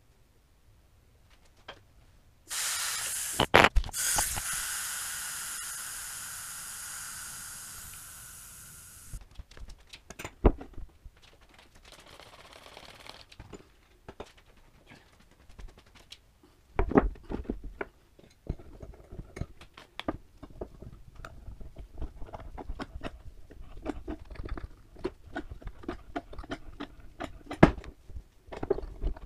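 Air hissing out of a motorcycle front tire as it is let down, loud at first and fading away over about six seconds. After that comes a short, fainter spray of soapy water onto the tire bead, then scattered clicks and knocks as a C-clamp is worked to break the tight bead loose.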